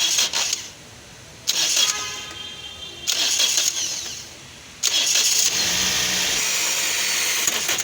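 Toyota Corolla's starter motor run four times in short bursts, the last one about three seconds long, whirring with a high-pitched whine while the engine does not crank or turn over: a fault inside the starter.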